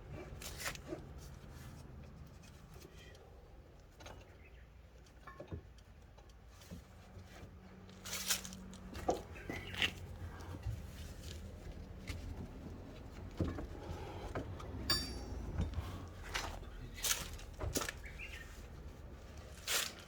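Irregular clicks, light knocks and rustling of hand work on the engine bay, with louder taps in the second half.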